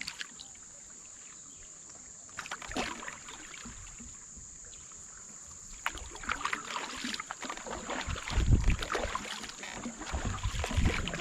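Kayak paddle strokes in river water, sparse at first and busier after about six seconds, with heavy low thuds in the second half.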